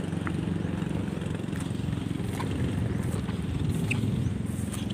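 A small engine running steadily, with faint light clicks of footsteps on loose pebbles.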